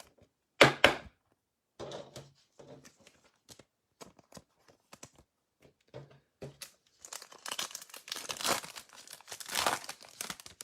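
Trading cards handled, with a short knock about half a second in and scattered small taps and rustles, then a card pack's plastic wrapper torn open and crinkled for a few seconds near the end.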